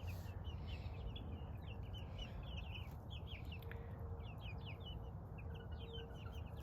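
Birds in a poultry yard chirping: many short, quick chirps one after another, over a steady low rumble.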